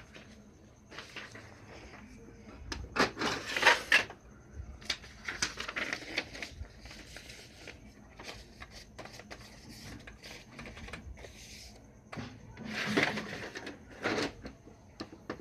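Plastic paper cassette of a Ricoh SP 200 laser printer scraping and rattling as it is handled and paper is shifted in it. The loudest scrapes come about three seconds in and again near the end, as the cassette is pushed back into the printer.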